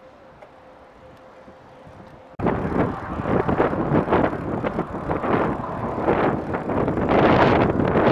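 A faint steady hum for about two seconds, then loud, gusty wind noise buffeting the microphone starts suddenly and runs on while riding a bicycle.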